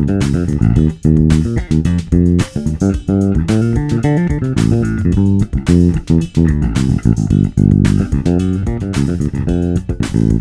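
F Bass BN5 five-string electric bass played solo through an Eich T-500 bass amp and 212M 2×12 cabinet: a busy line of quick plucked notes, each with a sharp attack.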